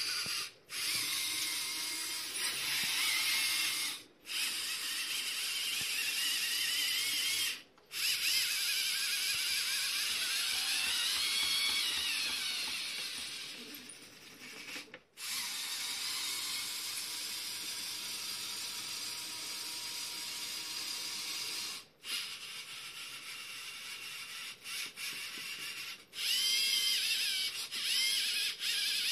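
Small LEGO Mindstorms EV3 electric motors and their plastic gear trains whirring as a LEGO robotic arm drives its joints. The whine rises and falls in pitch as the motors speed up and slow down, and it stops briefly between moves.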